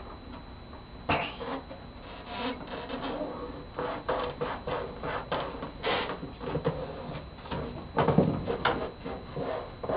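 Fingers rubbing a vinyl window mask down inside a clear Lexan RC car body, with irregular crinkling and scraping of the thin plastic shell as it is handled and shifted on the bench. The loudest rustles come about a second in and again near the end.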